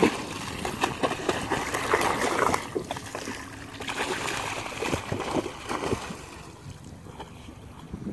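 A border collie bounding and splashing through shallow water, a quick, irregular run of splashes. About six seconds in the splashing dies down to a quieter wash of water as the dog starts swimming.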